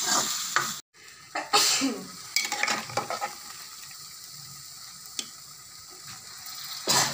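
Masala sizzling in a kadhai while a metal ladle stirs and scrapes it. After a brief dropout about a second in, boiled goat offal is added from a pressure cooker, with a low steady sizzle, a few sharp metal clinks and a louder burst of sizzling near the end.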